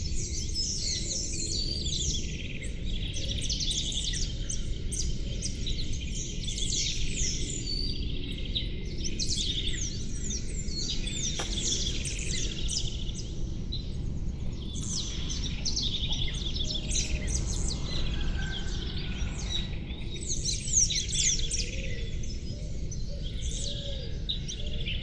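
Many small birds chirping and singing together in a dense, overlapping chorus of quick high chirps and trills, over a steady low background rumble.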